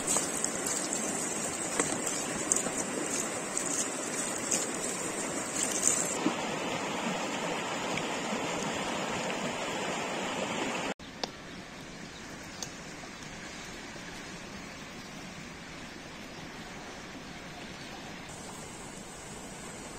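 Water pouring and splashing over chicken wings in a plastic colander, with a mountain stream rushing over rocks, then the stream alone. About eleven seconds in the sound cuts off abruptly to a quieter steady hiss from a small wood fire, with a couple of sharp clicks.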